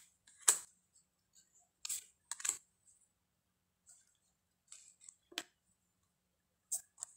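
Large glossy tarot cards being flipped and set down one at a time: a handful of separate short card clicks and slides, a second or more apart.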